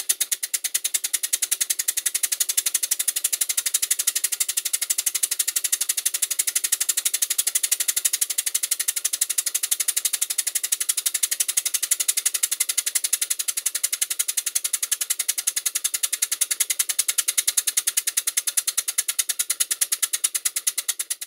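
Stuart 5A model steam engine running on compressed air, giving rapid, evenly spaced exhaust puffs at a steady speed.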